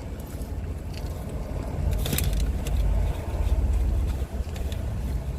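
Low, steady rumble of a car's engine idling, heard inside the cabin, with a short crinkle about two seconds in.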